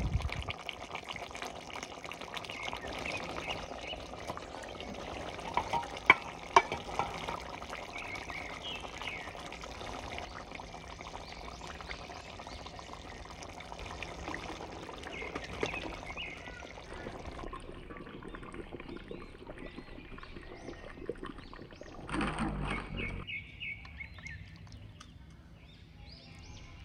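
Thick chicken curry being stirred and spooned in a clay pot, a wet sloshing with two sharp clacks about six seconds in. Birds chirp in the background.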